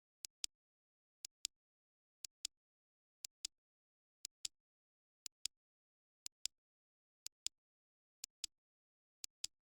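Clock ticking: a pair of sharp clicks once a second, the second click of each pair a little louder, with dead silence between.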